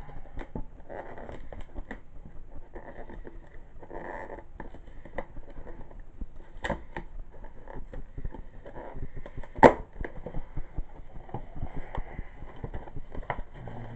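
Hands opening a cardboard mailing box: rustling and scraping, short tearing sounds, and many small clicks and crackles. One sharp, loud crack comes a little under ten seconds in.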